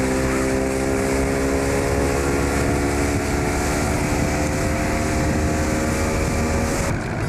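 Motorboat engine running at steady high throttle while towing an inflatable tube, with water rushing and splashing past the hull. The engine tone stops abruptly near the end.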